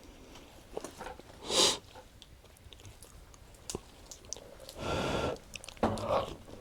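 People eating: chewing, with scattered light clicks of cutlery. Three short, louder rushes of noise stand out, the loudest about a second and a half in.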